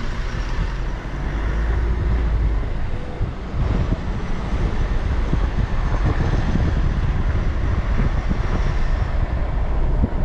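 Motor vehicle driving: a steady low engine rumble under continuous rushing noise.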